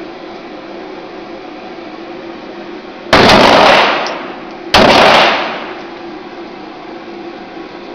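Two gunshots about a second and a half apart, each loud enough to overload the recording, with a long echoing tail dying away after each.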